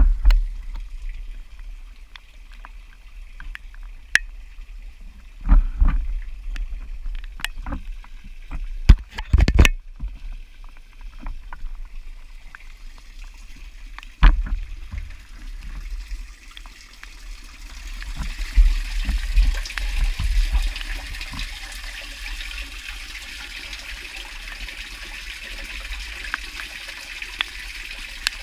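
Low wind rumble on the microphone with scattered knocks of handling, then from about eighteen seconds in a steady hiss of running water.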